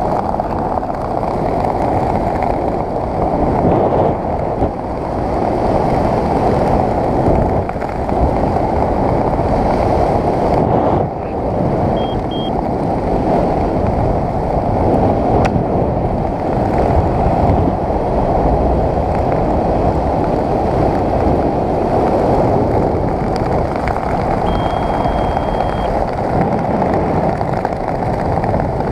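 Wind rushing over the microphone during a parachute descent under canopy: a loud, steady noise. Two short high beeps sound about twelve seconds in, and a longer beep comes near twenty-five seconds.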